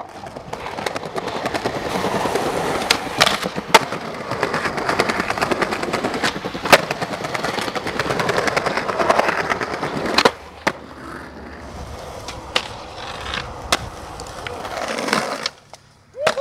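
Skateboard wheels rolling over rough street pavement, broken about a dozen times by sharp wooden board clacks from pops and landings. The rolling is louder for the first ten seconds or so, then quieter.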